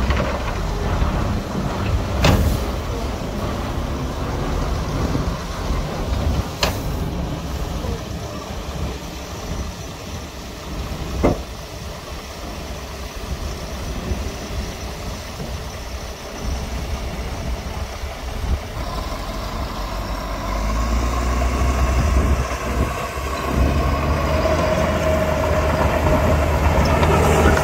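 Heavy diesel earthmoving machinery, dump trucks and a bulldozer, running steadily, with three sharp clanks in the first dozen seconds. From about two-thirds of the way through, an engine grows louder and holds a steadier pitch.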